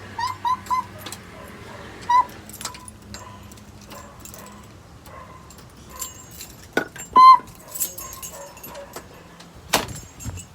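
Keys jangling and clicking in a door lock as it is worked, with knocks from the lock and door, the loudest near the end. Several short high-pitched chirps sound over it: three in quick succession at the start, one about two seconds in and a louder one about seven seconds in.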